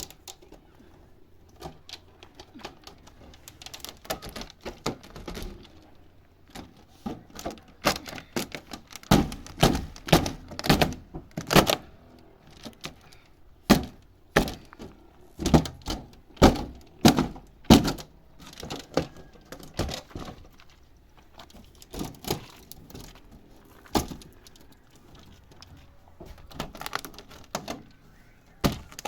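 Irregular knocks and thuds, as of things being struck or dropped. They come sparse and fainter at first, then in a dense run of loud blows in the middle, then thin out again.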